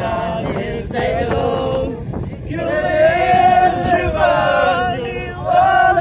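A group of voices, mostly men, singing together in a chant-like song, with long held notes and a short break between phrases about two seconds in.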